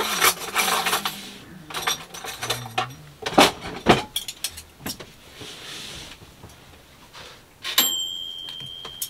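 Tableware clinking and scraping as food is served: a metal spoon tapping and scraping against a baking tray and plates, with a series of sharp clinks. Near the end one sharp clink is followed by a high ringing tone that lasts a couple of seconds.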